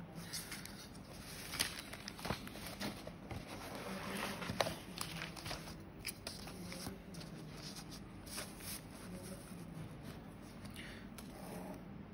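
Sheets of paper rustling and shuffling as they are handled and slid over a book, with scattered small clicks and taps.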